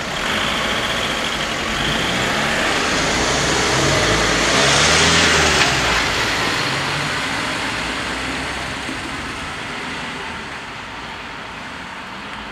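A van and a car driving off over a level crossing as the barriers lift. The van's engine climbs in pitch as it pulls away, the traffic is loudest about five seconds in, and then it fades.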